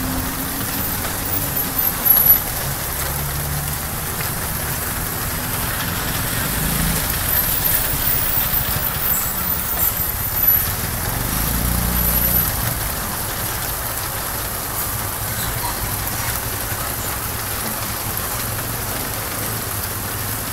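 Steady rain falling on a street and its surroundings. A low, uneven rumble runs under it and fades out about two-thirds of the way through.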